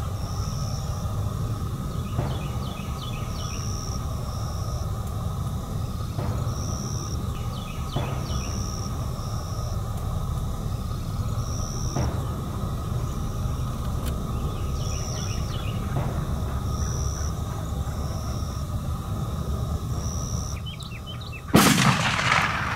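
A single shotgun blast from an Escort shotgun fired at a turkey near the end, loud and sudden with a short ringing tail. Before it comes a steady low rumble with a short high note repeating every second or two.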